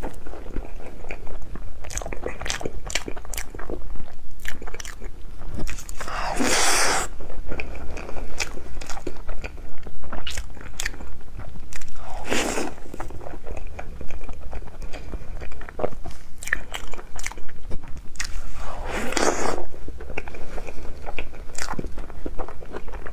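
Close-miked eating of colourful crepe cake: bites and chewing with many small sharp clicks, and three louder, longer bursts roughly six seconds apart.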